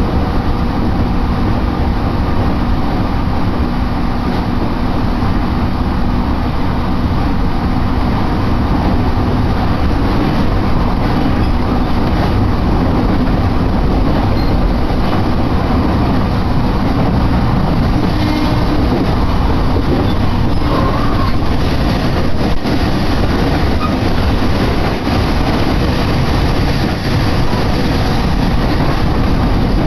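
Steady running noise of an electric train heard from inside the passenger car: a loud, even rumble of wheels on rails at speed.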